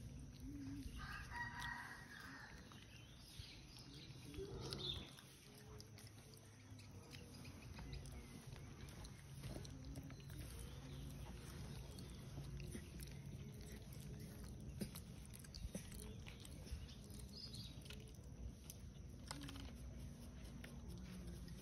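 A rooster crowing once, about a second in, over a steady low outdoor hum.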